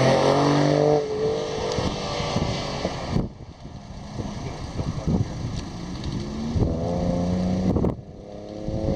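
Vehicles driving past on a road, their engines heard as a steady hum twice, over a rough rumble of wind on the microphone. The sound changes abruptly about three seconds in and again near the end.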